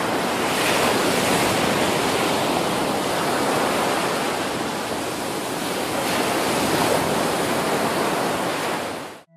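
Steady rushing wash of sea surf with no distinct breaks, cutting off suddenly near the end.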